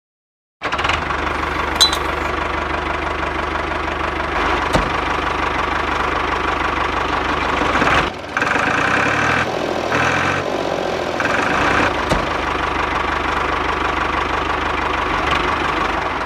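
Tractor engine idling with a steady knocking chug, starting abruptly about half a second in. About halfway through, the low rumble drops out for a few seconds while higher tones come and go.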